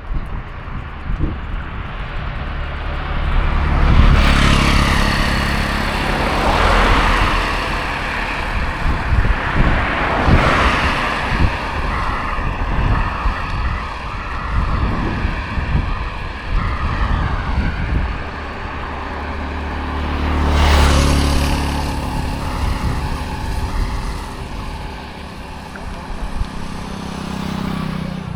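Road traffic passing close by, with a steady low engine rumble; the loudest vehicles go by about 4, 10 and 21 seconds in. A faint wavering whine runs through the middle.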